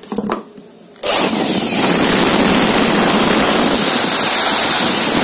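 A 380 W hand-held electric air blower, its motor freshly rewound in armature and stator, switched on about a second in. It then runs steadily at full speed, its open plastic impeller whirring loudly. This is the test run showing that the rewound motor works and spins fast.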